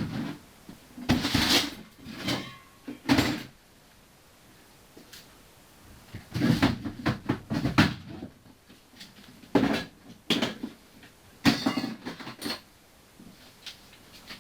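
Metal tools clattering and knocking as they are rummaged through and handled, in a series of short bursts with quiet gaps between them.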